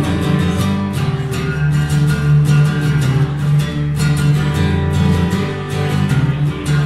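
Acoustic guitar strummed in a steady rhythm, chords ringing on.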